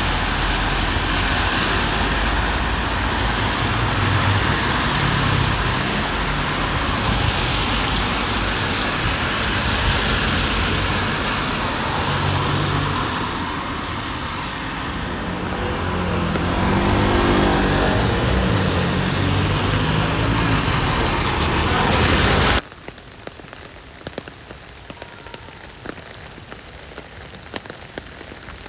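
Heard from inside a moving bus in rain: engine and road noise whose pitch rises and falls as it drives. About three-quarters of the way in it cuts off suddenly to quieter rain, with raindrops tapping on the window.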